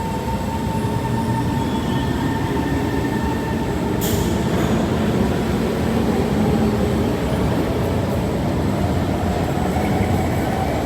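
Metro train running, with a motor whine slowly rising in pitch as it gathers speed and a short sharp click about four seconds in.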